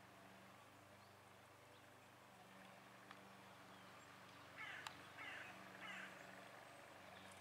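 Near silence broken about halfway through by three short, harsh animal calls, a little over half a second apart, with a faint click just before the second.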